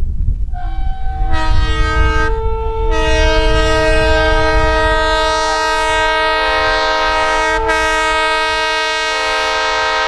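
Locomotive multi-chime air horn sounding a chord: a shorter blast, then one long held blast from about three seconds in, over the heavy low rumble of the passing train.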